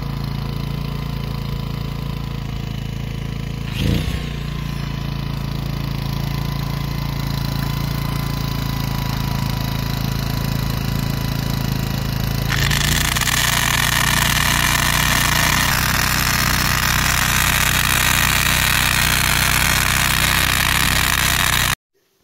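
A Powerhouse portable generator running steadily; about halfway through, a hammer drill starts boring into rock and the generator takes the load, a loud rough noise until it cuts off suddenly near the end. He was drilling holes for expanding grout and later blamed a bit that wasn't sharp enough and a hammer drill that wasn't strong enough.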